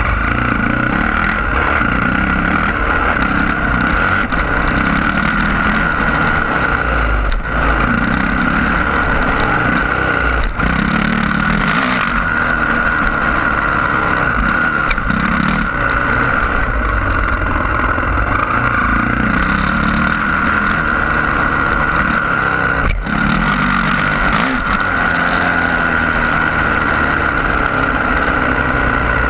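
Yamaha YZ450F's single-cylinder four-stroke engine being ridden hard, revs rising and falling again and again through the track's jumps and turns. A few sharp knocks break through along the way.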